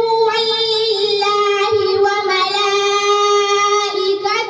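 A young girl reciting the Quran in melodic tajweed style, drawing out long held notes with small turns of pitch.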